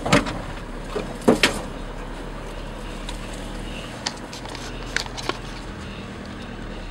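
Pickup truck driving slowly off-road: a steady low engine hum with a few sharp knocks and clatters from the vehicle over the rough ground, two loud ones in the first second and a half and a few smaller ones around four and five seconds in.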